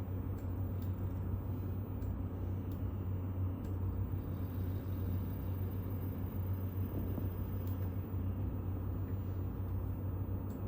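Steady low electrical hum of a robotic arm's servo motors and controller, with a few faint clicks now and then.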